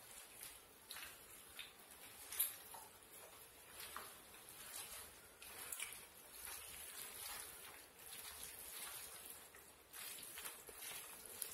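Faint rustling and soft wet squishing of hands tearing parotta and mashing it into kurma on a banana leaf, with scattered small crackles and one sharper click about two and a half seconds in.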